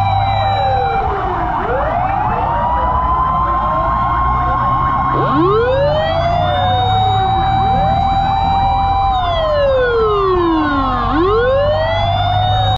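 Several fire truck sirens wailing at once, out of step with each other: each one climbs, holds a high note, then slides back down, with several pitches overlapping. A steady low engine rumble runs underneath.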